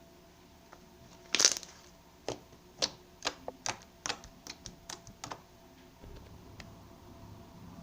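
Slime being squeezed and poked by hand, giving a run of short, sharp clicking pops as air pockets burst, with one louder squelch about one and a half seconds in.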